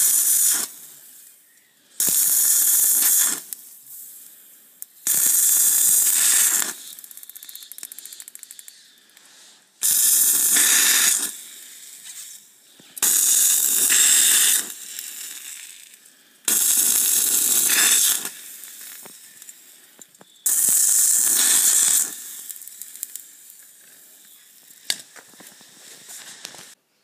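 Stick-welding arc powered by LiFePO4 batteries, crackling and hissing in seven short bursts of a second or two each as the rod is struck and the arc runs, with quieter crackling between bursts.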